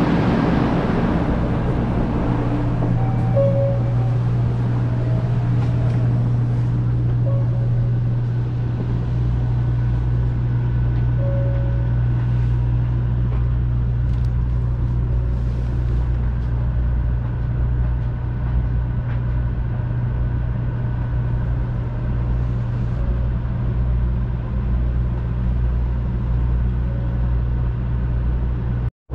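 Steady low hum inside a stationary 500 series Shinkansen car, with a deeper layer of hum joining about a third of the way through.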